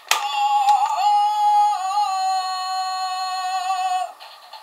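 Zyuoh Changer toy phone's speaker playing a long held electronic sung note with small pitch wobbles, after a click at the start as the toy is opened; the note cuts off about four seconds in.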